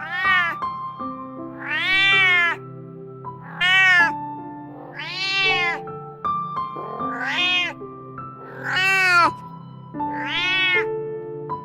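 A domestic cat meowing seven times, each meow about half a second long and rising then falling in pitch, over soft background music.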